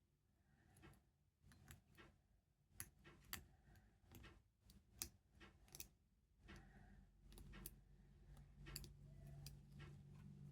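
Faint, irregular small metallic clicks of a hook pick and tension wrench working the pins inside a small padlock. A faint low hum builds from a little past halfway.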